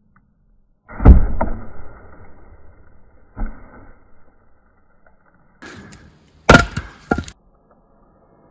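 Firewood being split and handled: a loud wooden knock about a second in, another around three and a half seconds, then a quick run of sharp cracks and knocks between about five and a half and seven seconds.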